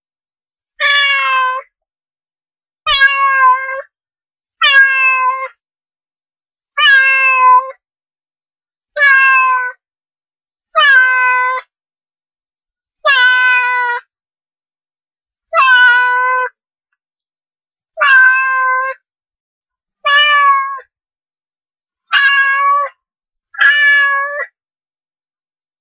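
Domestic cat meowing over and over: twelve short meows, each under a second and spaced about two seconds apart, with complete silence between them.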